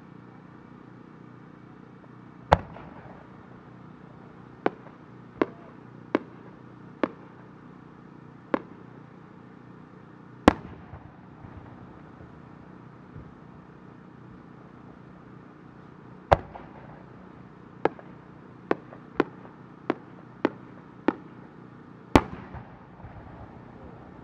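Aerial firework shells going off in a series of sharp bangs. Four heavy booms, each with a rolling echo, come about six to eight seconds apart, with lighter single bangs between them and a quick run of five just before the last boom.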